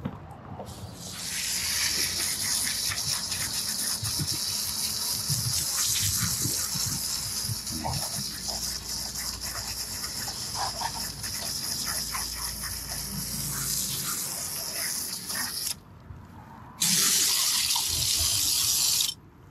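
Garden hose spray nozzle jetting water into the metal cabinet and base pan of an older vertical PTAC, washing out built-up dirt. The spray starts about a second in and runs steadily, stops for about a second near the end, then sprays again for a couple of seconds.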